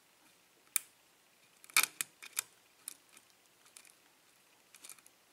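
A pick working the pin stacks of a Schlage six-pin lock cylinder under tension, giving small, sharp, irregular metal clicks. The loudest cluster comes about two seconds in, with a few fainter clicks near the end.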